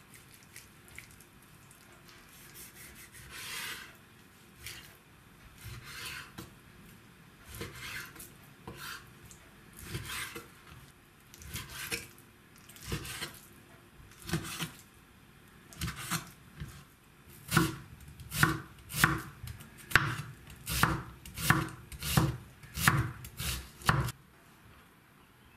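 Chef's knife cutting raw chicken breast on a wooden cutting board. Soft slicing strokes come every second or so; about two-thirds of the way through they give way to quicker, louder chops knocking the board, about two a second, which stop shortly before the end.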